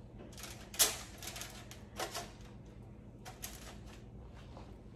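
A few short clicks and light knocks, the sharpest about a second in, over a faint steady hum.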